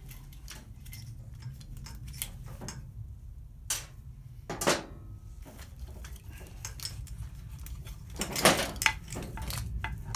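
Motorcycle wiring loom and its plastic plug connectors being handled and pulled free against the steel frame: scattered light clicks and rattles, with louder knocks a little under four and five seconds in and a cluster around eight and a half seconds.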